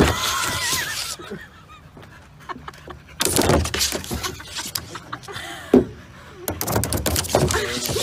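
A dog sliding down a plastic playground slide, its body rubbing and scraping along the plastic in three noisy rushes about a second long each.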